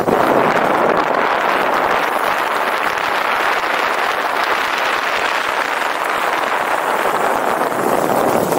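Steady, loud rushing noise of wind on the microphone during a fast downhill ride, unbroken throughout.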